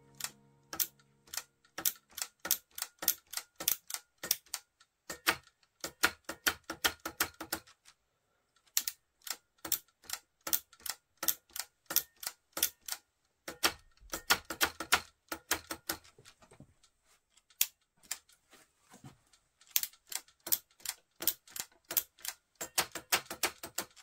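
A rapid run of sharp mechanical clicks, about four a second, coming in bursts with short pauses.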